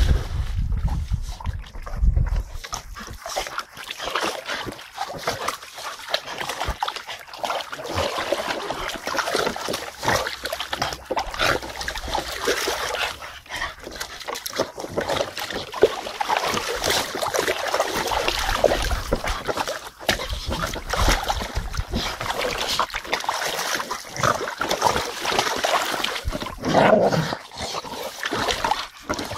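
Staffordshire bull terriers splashing and sloshing water in a plastic paddling pool as they lunge at a ball, with the dogs' own excited vocal sounds mixed in.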